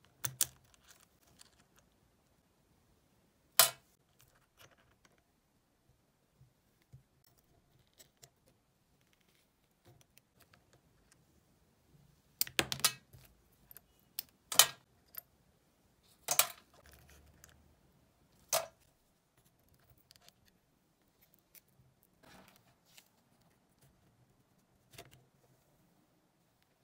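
Scattered light metal clicks and clinks as steel tweezers pick the small planet gears out of a Makita 6270D drill's planetary gearbox and set them down, with a handful of sharper clicks among them.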